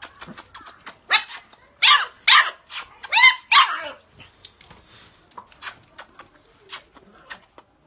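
Dog barking, about five loud barks in quick succession between one and four seconds in, with scattered small clicks and knocks around them.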